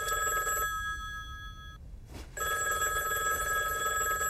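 Telephone bell ringing in two rings: the first stops a little under two seconds in, and after a short pause the second ring begins.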